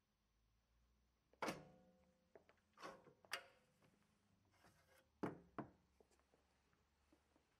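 Plastic tubes in a foam holder being loaded into a tube sealer's metal frame: a few knocks and scrapes. The first knock is the loudest and rings briefly, and two more knocks come close together near the end.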